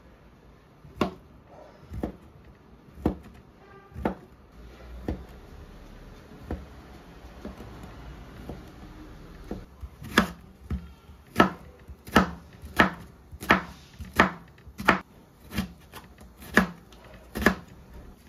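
Kitchen knife chopping on a plastic cutting board: single knocks about once a second at first, then from about ten seconds in a quicker run of sharper chops as an onion is cut and diced.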